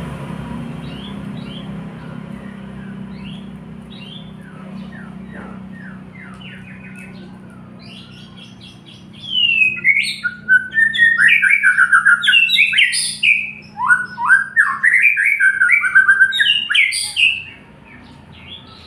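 White-rumped shama singing. Faint short call notes come first, then from about nine seconds a loud, varied song of rapid whistled phrases runs for about eight seconds before stopping. A steady low hum sits underneath and fades early on.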